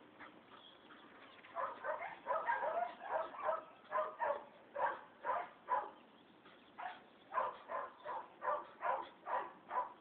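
Dog barking in a rapid run of short, pitched barks, about two to three a second, starting about a second and a half in, breaking off briefly around six seconds in and then resuming.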